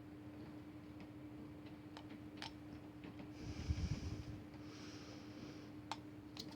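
Faint, scattered clicks of a hook pick and tension wrench working the pins inside a Master Lock disc padlock during single-pin picking, with two soft breaths in the middle over a steady low hum.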